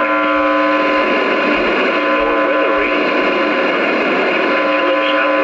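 Weather-radio broadcast on a poor signal: a steady whine of several tones at once over a hiss of static, with a voice faint beneath it.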